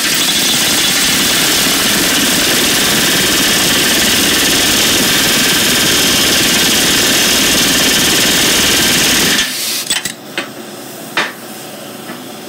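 Pneumatic rivet gun hammering a red-hot steel rivet through the spoke and hub of a steel tractor wheel: a loud, continuous rapid rattle for about nine and a half seconds that stops abruptly. A few sharp metal knocks follow.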